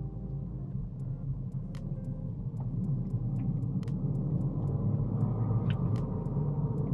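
Toyota Corolla Hybrid accelerating hard from inside the cabin, a low rumble that grows louder about three seconds in. Faint rapid ticks, about four a second, run over it.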